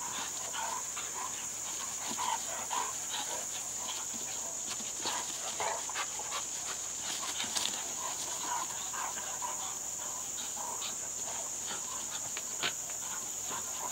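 Two dogs play-wrestling on grass, making many short, scattered play noises over a steady high-pitched buzz.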